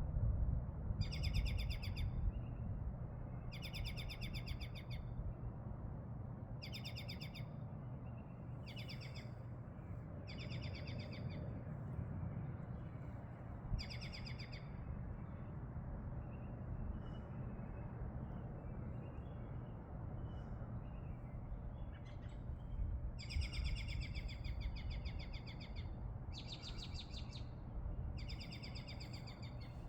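A bird repeatedly gives harsh, buzzy calls of about a second each, around nine in all, with a long pause in the middle. A steady low rumble runs underneath.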